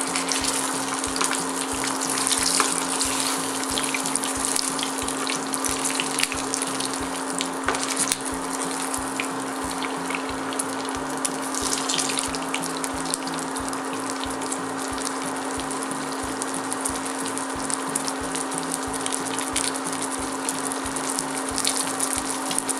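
Breaded meatloaf frying in shallow oil in a non-stick pan: a steady sizzle that goes on without a break.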